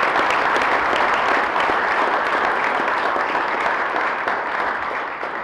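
Banquet audience applauding, steady clapping that begins to die away near the end.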